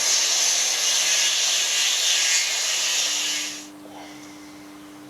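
Power drill boring 14 mm holes into staircase timber: a loud, steady cutting noise that stops about three and a half seconds in.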